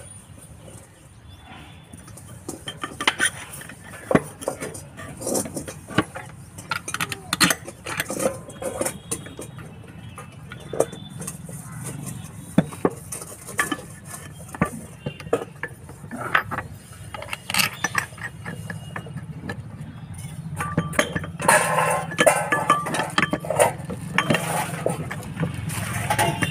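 Metal clinks and knocks as diesel filter canisters are handled and fitted onto a metal twin-filter head, in short irregular taps that come thicker near the end. A steady low hum underneath grows louder in the last few seconds.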